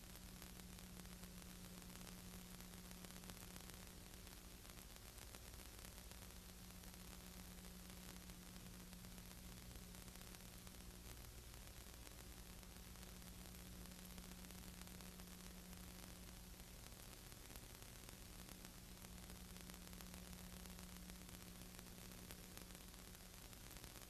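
Near silence: steady hiss with a low, steady hum, and no sound of the cars.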